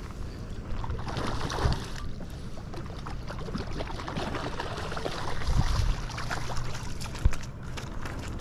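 Wind rumbling on the microphone, with rustling, handling knocks and a sharp thump a little past seven seconds in.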